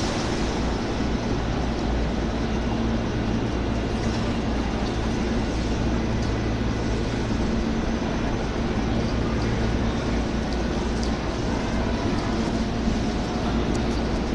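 Steady low hum and rumble of electric trains standing at a station platform, with a few steady low tones under an even noise.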